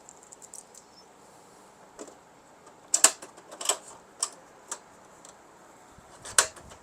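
Handling noises from unpacking: a scattered series of sharp taps and clicks as items are picked up and set down, loudest about three seconds in and again near the end.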